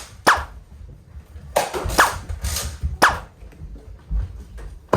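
Nerf blasters firing foam darts: several sharp pops a second or so apart, the loudest three each with a quick falling twang.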